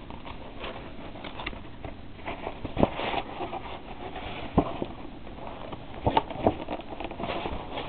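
Rustling and handling of packaging as paper vacuum bags are pulled one-handed out of their pack, with a few sharp knocks and crinkles spread through.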